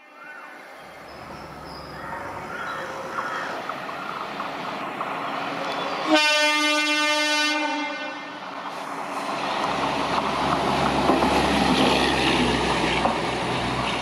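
ICF self-propelled inspection car approaching on the track, its under-slung diesel power pack and wheels making a low rumble. About six seconds in it gives one horn blast of roughly a second and a half, the loudest sound. The rumble then grows louder as the car draws near.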